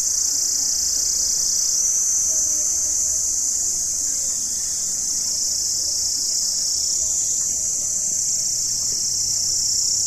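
A steady, high-pitched insect chorus shrilling without a break from the forested hillside.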